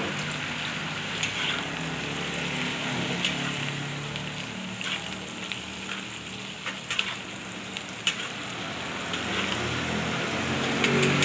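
Cabbage sizzling in hot oil in a steel wok, stirred with a metal spatula. The spatula knocks and scrapes against the wok a few times.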